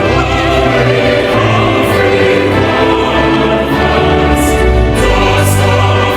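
A choir singing a national anthem in sustained notes, with orchestral accompaniment.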